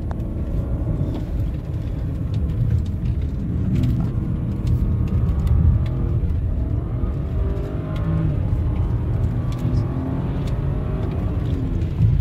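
A car heard from inside its cabin while driving: a steady low rumble of engine and road noise, with the engine note sliding up and down as the speed changes.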